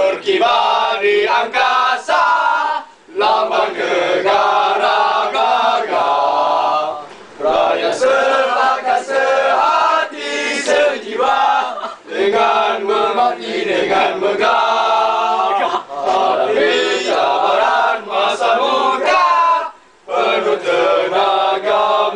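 A group of young men singing a Malaysian patriotic song together in loud chorus, with a few short breaks between lines.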